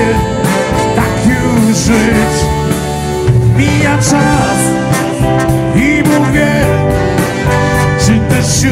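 Big band playing live, with drums and keyboard and a steady beat.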